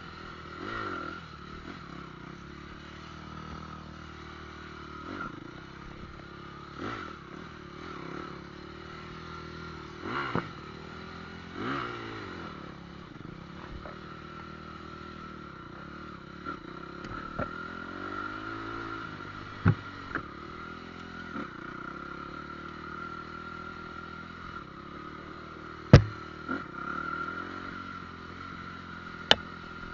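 Motorcycle engine running, its revs rising and falling as it rides, with a few sharp knocks about two-thirds of the way in and near the end.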